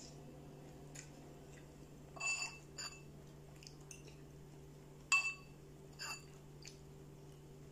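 A spoon clinking against a bowl of curry while scooping, four ringing clinks about two, three, five and six seconds in, the one about five seconds in the loudest. A steady low hum runs underneath.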